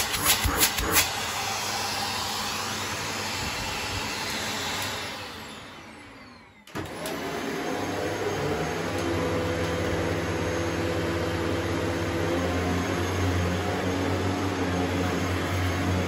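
Shark upright vacuum cleaner running, with a few sharp plastic clicks near the start. It is then switched off, and its motor winds down with a falling whine to near silence. About seven seconds in, a running vacuum suddenly comes back in with a steady motor hum and rushing air.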